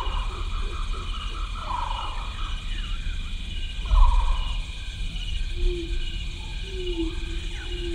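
Outdoor animal sounds: birds chirping in short repeated notes and a steady, high pulsing insect chirr, over a low rumble that swells briefly about four seconds in.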